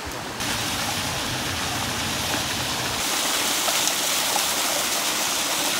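Running water: a steady rushing splash with no tone to it. It jumps abruptly louder about half a second in and changes again about three seconds in.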